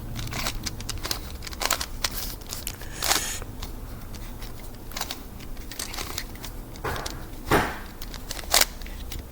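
Yeet Ball, a spherical plastic twisty puzzle like the Ivy Cube, being scrambled: irregular clicking and clacking of its pieces as they are turned, with a few louder clacks near the end.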